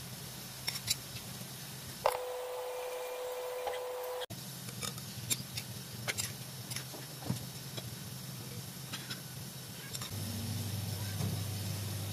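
Metal spoon tapping and scraping against a stainless-steel mesh sieve as flour is sifted through it: irregular light ticks. A faint steady tone sounds for about two seconds, starting about two seconds in.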